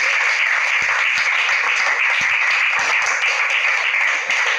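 Audience applauding with steady clapping, which dies away near the end.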